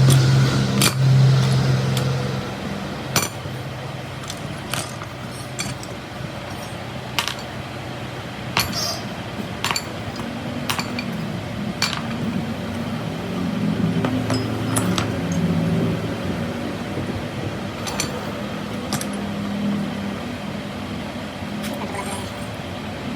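Scattered sharp metal clinks and taps, as from steel parts being handled and struck, over a steady low engine-like hum that shifts in pitch.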